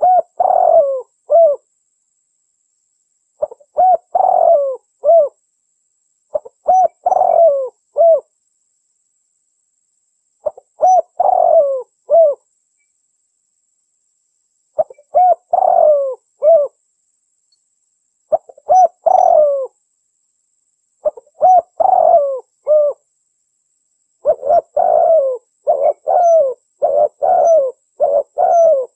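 Dove cooing from a lure-call recording: phrases of three or four low coos, the last note falling, repeat every three to four seconds with silence between, then follow one another rapidly in the last five seconds.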